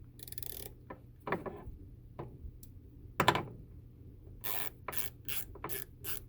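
Quarter-inch drive hand ratchet being worked back and forth, its pawl clicking in a series of short bursts that come closer together in the second half.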